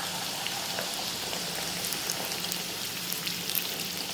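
Pal pathiri (rice-flour flatbread) deep-frying in hot oil: a steady sizzle with many small crackles, as the dough puffs up. A faint low hum runs underneath.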